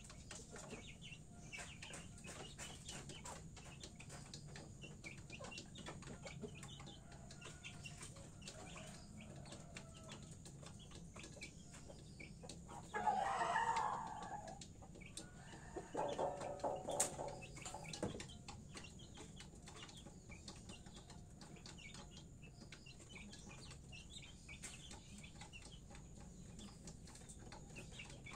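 Chickens clucking softly among scattered light taps. A louder squawk comes about 13 seconds in, and a longer, fuller call around 16 to 18 seconds in.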